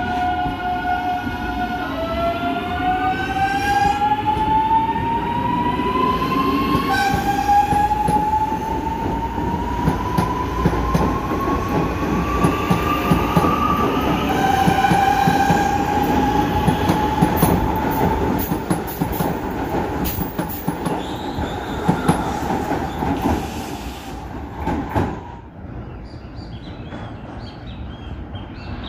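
Series 8900 electric commuter train pulling away, its traction drive whining in a series of rising tones that climb step by step as it gathers speed, over the rumble of wheels on rail. The whine and rumble fade about twenty-five seconds in.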